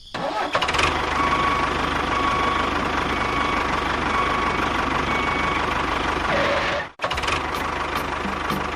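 A small motor running steadily with an even hum, breaking off abruptly about seven seconds in and running again straight after.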